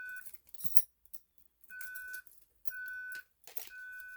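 Fire alarm speaker strobe sounding its evacuation tone: a steady high beep in half-second pulses, three in a row after a pause, the temporal-three pattern, with a few sharp clicks in between the beeps.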